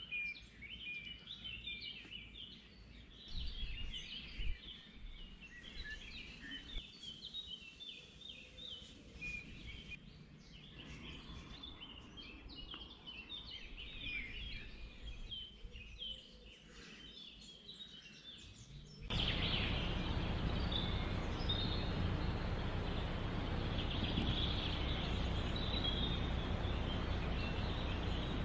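Many short, high bird chirps and calls overlapping, as at a bird colony. About two-thirds of the way in, a steady rushing noise starts suddenly and stays louder, with the calls still over it.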